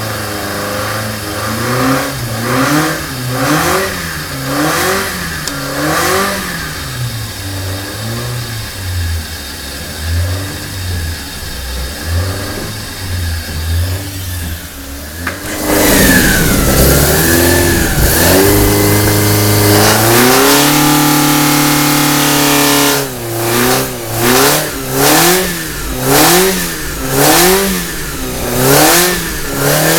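Cosworth BDG 2.0-litre twin-cam four-cylinder race engine on twin Weber 48 DCOE carburettors, blipped about once a second, then dropping back to a steadier, quieter run. About halfway through it climbs suddenly to high revs and holds there for several seconds, then is blipped about once a second again.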